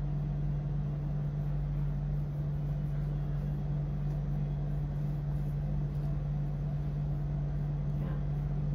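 A steady low hum with a faint, even background hiss.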